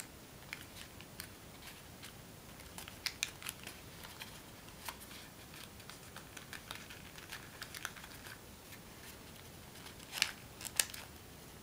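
Folded origami paper crinkling and crackling faintly under the fingers as small mountain folds are pinched into the model, with a louder pair of crackles about ten seconds in.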